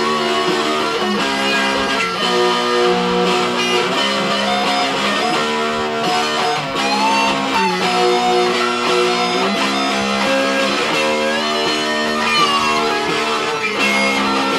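Two guitars played together, one a Stratocaster-style electric: held chords that change every second or two, with a lead line on top that bends up in pitch several times.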